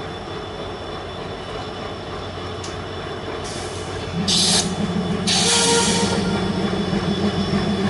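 Passenger train running, with a steady rumble of the coaches on the track. Short bursts of high hissing come about four and five and a half seconds in, and a low steady drone joins around the same time.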